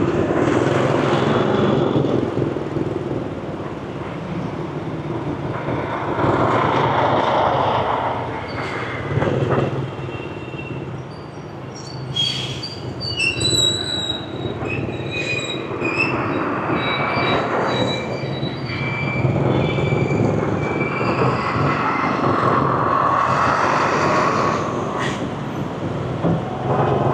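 Motorbike riding through city streets: its engine running steadily under traffic and road noise, with a run of short, high-pitched squeals in the middle.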